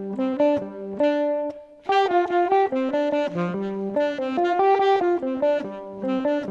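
Instrumental background music: a bright melody of short, quick notes, with a brief pause about a second and a half in.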